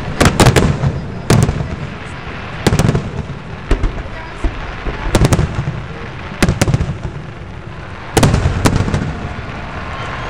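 Aerial firework shells bursting in a display: sharp bangs in irregular clusters every one to two seconds, each trailing off in a low rumble.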